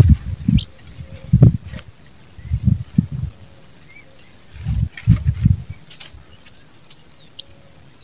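Pipit nestlings' thin, high-pitched begging cheeps, rapid and continuous at first, then sparser in the second half. Several low dull thumps come through, louder than the cheeps.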